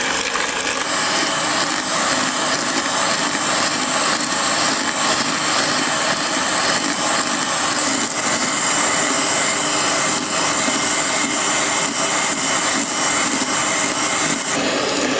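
Electric hand beater running steadily, whipping instant coffee, sugar and a little water into a thick cream for cappuccino: a whirring motor with a steady high whine on top.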